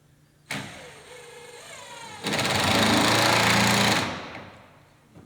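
Electric drill working on wood: a short run about half a second in that winds down in pitch, then about two seconds of louder drilling or screw driving that dies away.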